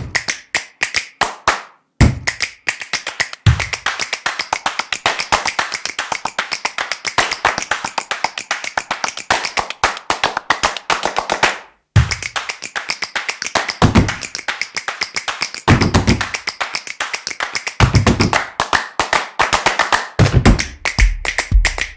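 Background music made of fast, evenly spaced percussive taps, with two brief drop-outs and deep bass hits coming in on and off through the second half.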